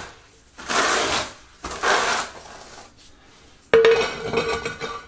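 Notched steel trowel scraping thinset mortar across the floor in two long strokes, then a sharp ceramic clack with a short ring near the end as a floor tile is set down into the mortar.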